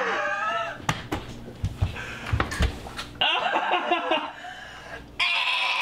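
A woman laughing and shrieking in disgust after sipping raw-fish-soaked milk, with several sharp thumps and slaps between about one and three seconds in as she slumps to the floor against the kitchen cabinets.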